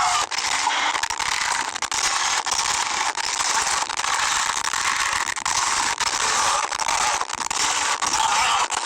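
A steady, dense crackling, rattling sound effect, mostly high and hissy with little bass, full of small rapid clicks and brief dropouts.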